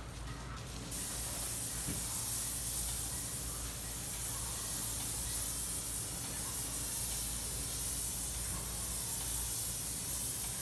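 Airless paint sprayer gun on an extension wand spraying paint onto a wall: a steady hiss that starts abruptly about a second in and holds.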